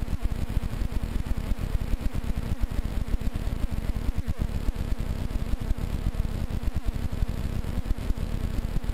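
Powered paraglider trike's engine and propeller running steadily in flight, with heavy wind buffeting on the camera microphone.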